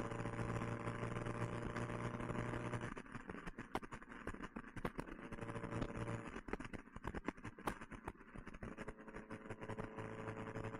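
1969 Alfa Romeo Spider's twin-cam four-cylinder engine running steadily through an Alfaholics exhaust, heard from the open cockpit. About three seconds in the steady engine note drops away and a run of irregular sharp crackles takes over. The note comes back briefly around five seconds and returns steadily near the end.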